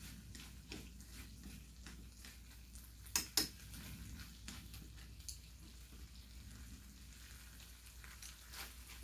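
Seasoned webfoot octopus frying faintly in a pan on a gas camping stove, stirred with chopsticks; small scattered clicks, and two sharper clicks about three seconds in as the chopsticks knock the pan.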